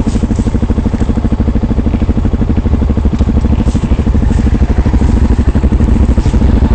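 Engine of an off-road vehicle running steadily and loud, with a fast, even pulsing beat and a few faint ticks over it.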